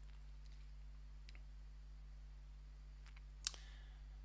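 Low steady hum with a few faint ticks and one sharp click about three and a half seconds in.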